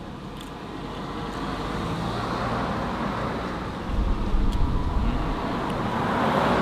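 A minivan driving along the road toward the listener, its tyre and engine noise building steadily and loudest near the end as it comes close.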